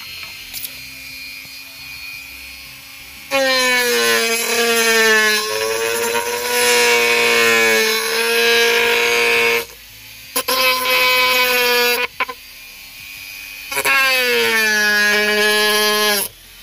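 Mini grinder (rotary tool) spinning a small cutting disc on its flexible-shaft handpiece, running freely at first, then cutting into a thin wooden board in several passes with a loud high whine that dips in pitch each time the disc bites.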